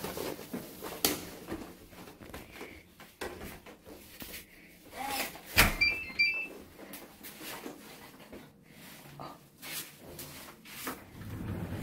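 Handling knocks and clicks, then a sharp bang about halfway through as a microwave door is shut, followed at once by a quick run of short electronic beeps from its keypad as the food is set to heat.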